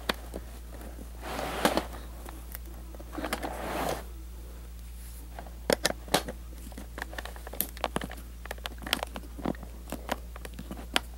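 Phillips screwdriver working the screws of a plastic VHS cassette shell: two short scraping passes in the first four seconds, then a run of irregular sharp clicks and ticks.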